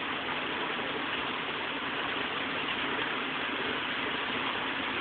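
Steady hiss of heavy rain falling, even throughout.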